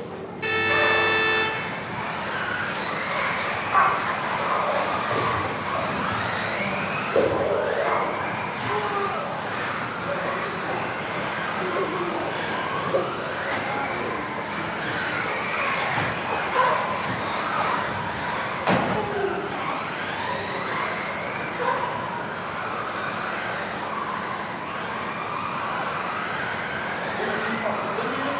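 Several electric off-road RC cars racing together, their motors whining in overlapping pitches that keep rising and falling, with a few sharp knocks. About half a second in, a loud steady electronic tone sounds for about a second.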